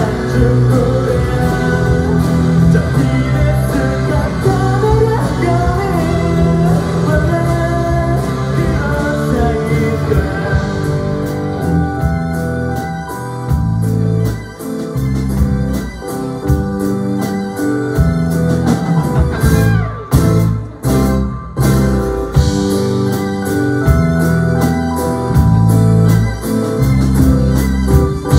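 Live rock band playing a song: singing over acoustic and electric guitars, bass, drums and keyboards. About halfway in the singing gives way to held, organ-like keyboard chords over the rhythm section, with a brief gap in the sound about two-thirds through.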